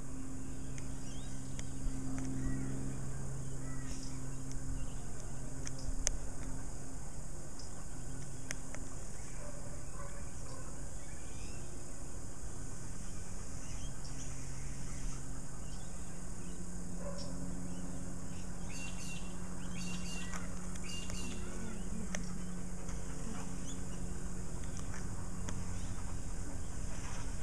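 Outdoor ambience of birds chirping and calling, with a thicker run of chirps past the middle, over a steady low hum.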